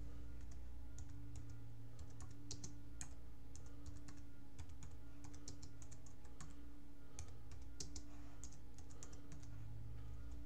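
Typing on a computer keyboard: irregular light key clicks, some in quick runs, over a steady low hum.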